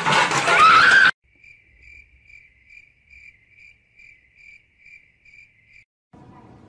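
A loud noisy burst with a rising tone cuts off about a second in. Then comes a cricket chirping sound effect, about two chirps a second, the comic "crickets" cue for awkward silence. It stops near the end, and faint background noise takes over.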